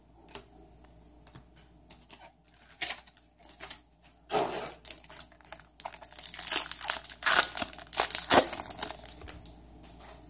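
Foil trading-card booster pack wrapper crinkling and tearing as a pack is opened. It starts with a few light rustles, gets louder about four seconds in, and the crinkling is densest in the second half.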